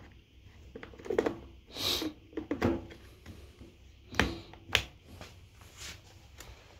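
Scattered light clicks and knocks from hands handling a two-stroke hedge trimmer that is not running, with a brief hiss about two seconds in and two sharper clicks a little past four seconds in.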